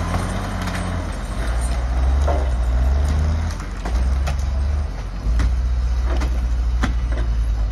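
Heavy diesel engine of a log loader running and revving in steps as it works its hydraulics, with a dip near the middle and a strong rise for the last couple of seconds. Occasional sharp knocks sound over it.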